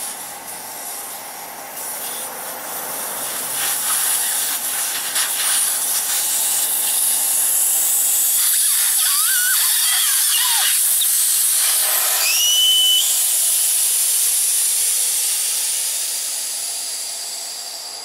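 Air hissing out of a Kawasaki Z1000's front tyre through the open valve stem, its valve core removed to deflate the tyre fully. The hiss builds, holds loud, then fades as the pressure drops, with a few brief whistling tones near the middle.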